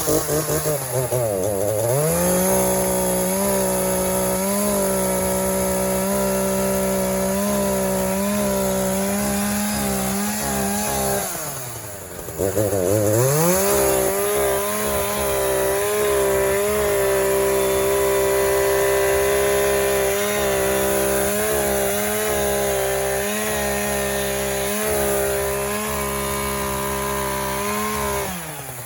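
Chainsaw cutting through a giant pumpkin, revving up and held at high revs. It drops back and revs up again about twelve seconds in, then falls back near the end.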